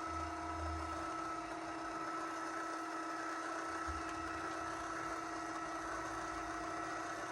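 Litter-Robot 3 drive motor running steadily as the globe rotates through its cleaning cycle, an even mechanical hum with no clicking. The usual clicking has gone now that the arm joining the globe to the base has been re-tensioned.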